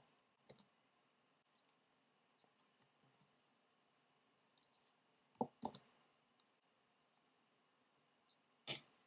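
Sparse computer keyboard keystrokes and mouse clicks, faint and irregular, with a louder pair of clicks about halfway through and another single one near the end.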